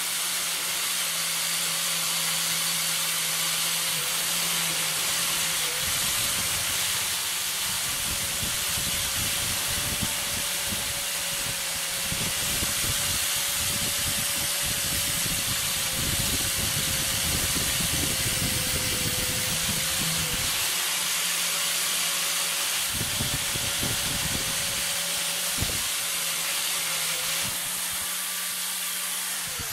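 Electric angle grinder with a wire wheel running steadily against the steel head of a rusty ball pein hammer, stripping the rust: a constant motor whine over a loud hiss of wire on metal. The whine dips slightly each time the wheel is pressed onto the work.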